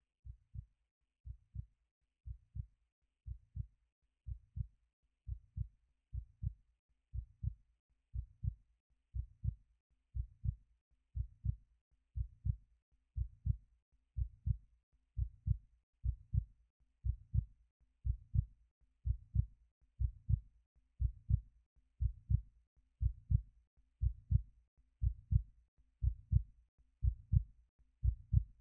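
A slow, steady heartbeat: low lub-dub double thumps a little more than once a second, growing gradually louder.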